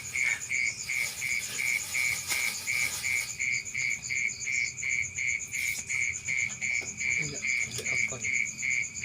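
Night chorus of calling insects and frogs: one caller repeats a high, evenly pulsed note, a little over three pulses a second, over a thinner, faster trill higher up.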